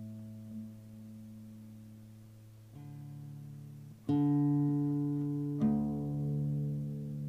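Classical guitar played as single plucked notes that ring out with a long sustain. A soft pluck comes near three seconds in, then louder plucks about a second and a second and a half later, each changing the pitch and ringing on.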